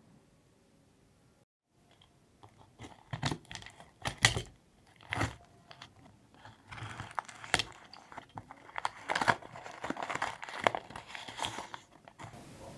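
A brown-paper book parcel sealed with plastic packing tape is handled and torn open by hand. Quiet at first, then scattered taps and knocks from about two seconds in, and from about halfway a long run of paper tearing and tape crinkling.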